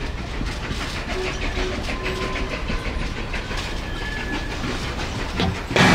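Passenger train running, heard from inside the carriage: a steady low rumble with faint, regular clicking of the wheels over the rails.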